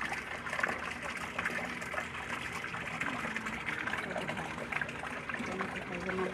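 A hose pours a steady, fast stream of water into a shallow tank of live tilapia, splashing continuously on the surface. The flow keeps fresh water moving so the fish stay alive.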